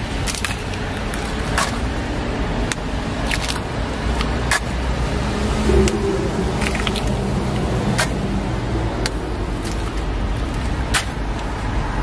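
Eggs cracked one after another onto batter in an egg-bread griddle: a dozen or so short, sharp shell taps at uneven intervals, over a steady low rumble.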